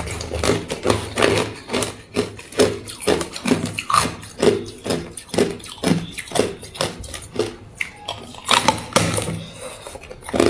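Hard ice crunching between the teeth: close-up biting and chewing of a frosted stick of ice, a few sharp crunches each second.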